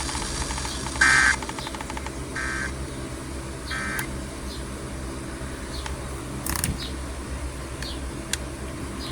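Emergency Alert System end-of-message data tones: three short bursts of buzzy, warbling digital tones about a second and a quarter apart, signalling the end of the alert. A low steady hum with a few faint clicks follows.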